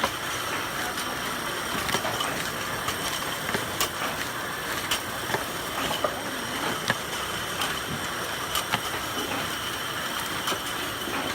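Sticker-applicator machines running on a record-jacket line: a steady mechanical hum with a few thin high tones and irregular sharp clicks.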